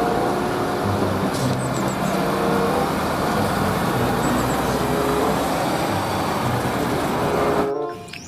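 A truck engine running steadily, cutting off suddenly near the end.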